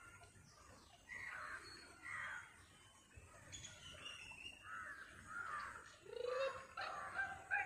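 Wild birds calling: a string of separate calls coming every second or so, with a short rising call about six seconds in.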